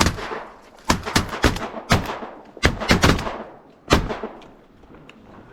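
Volley of shotgun blasts from several hunters firing together: about nine shots in the first four seconds, irregularly spaced, each with a short echo.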